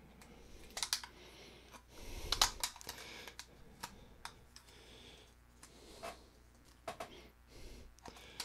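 Small plastic clicks and rustles from a DJI Mini 2 SE drone being handled and a protective piece being pulled off it: faint, irregular clicks, with a louder cluster about two and a half seconds in.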